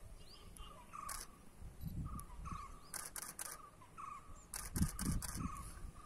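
Digital SLR shutter firing: a single click about a second in, then two quick bursts of three and four frames. A short high chirp repeats in the background about twice a second.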